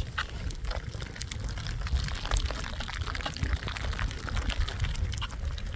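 Wind buffeting the microphone in a mountain storm, a steady low rumble with hiss, overlaid by many small irregular ticks and crunches.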